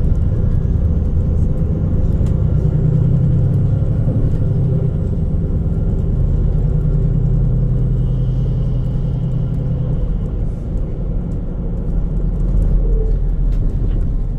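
Steady low rumble of a motor vehicle running and moving, with a constant engine hum underneath.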